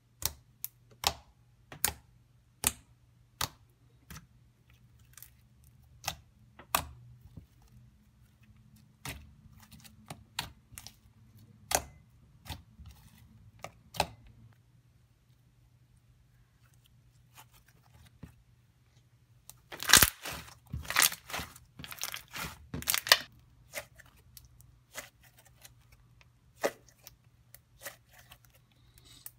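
Sticky homemade glue-and-salt slime being poked, pulled and squeezed by hand: a string of sharp wet clicks and pops. They are spaced out at first, then come in a dense flurry of squelching pops about twenty seconds in.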